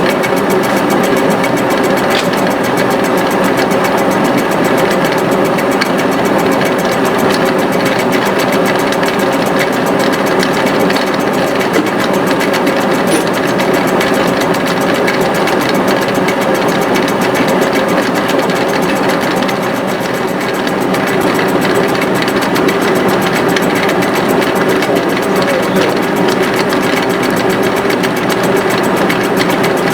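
A workshop machine's motor running steadily without a break, with a fast fine rattle, as in machining work on an engine cylinder head.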